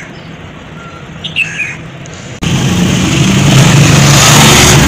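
A bird chirps briefly against a low background. About halfway through, a loud engine sound sets in abruptly and runs on: a steady low hum with a hiss over it.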